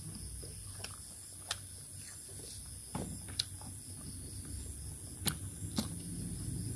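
Eating by hand: a few sharp clicks from chewing and fingers gathering rice on a plastic tray, over a low steady hum.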